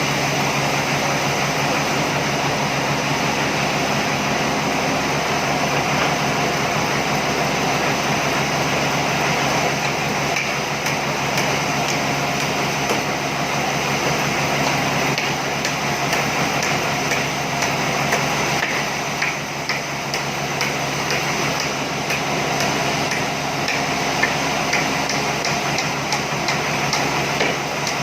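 A machine runs steadily with a constant hum, and from about ten seconds in there are many light clicks and taps.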